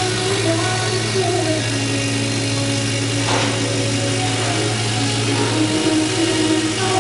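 A 100 W laser cutting machine running as it cuts plywood: a steady low machine hum, with a short hiss about three seconds in. Background music plays along with it.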